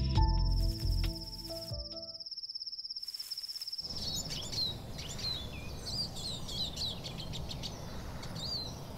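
Music with a deep bass ends about two seconds in, while a fast, even insect trill carries on to about the middle. From about four seconds, birds chirp and call in quick short notes over a faint outdoor hiss, like a dawn chorus.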